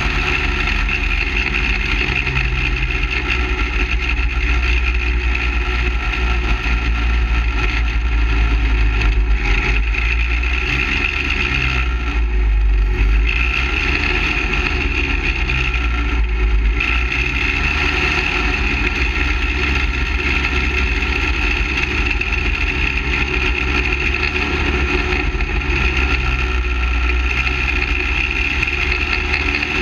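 Engine of a half-scale dirt late model race car running hard at racing speed, with wind rumble on a roof-mounted microphone. The engine note eases briefly twice in the middle, then comes back on.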